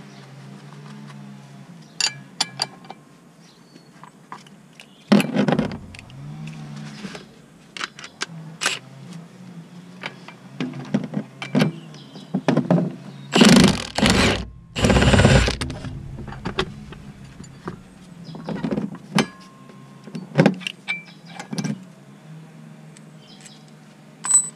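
Milwaukee Fuel cordless impact wrench hammering a nut under the car in two bursts of about a second each, about halfway through, with a shorter burst earlier. Metal tools and bolts clink and click throughout, over a steady low hum.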